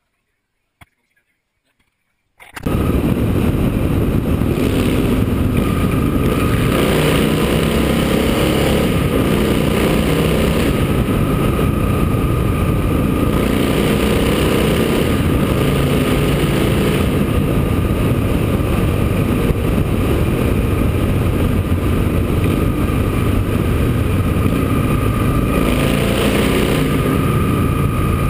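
After about two and a half seconds of near silence, a motorcycle at road speed cuts in suddenly: a steady engine note under loud wind rushing over the bike-mounted camera, holding level with no revving.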